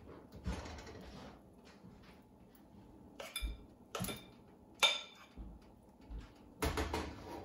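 Utensil clinking against a mixing bowl and frying pan while pancake batter is scooped and dropped into the pan: a soft scrape early on, then sharp, ringing clinks about three, four and five seconds in, and a quick pair near the end.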